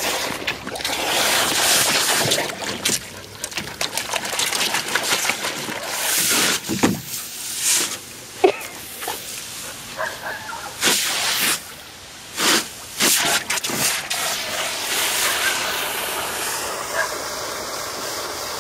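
Garden hose spraying water, hissing and spattering in irregular splashes as a puppy snaps and bites at the jet. The splashing thins out to a steadier hiss in the last few seconds.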